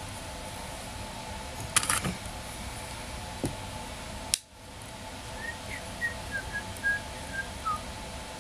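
Small clicks and taps from makeup items being handled, the loudest cluster about two seconds in, over a steady room hum. In the second half comes a run of about a dozen short high chirps, the last one dropping in pitch.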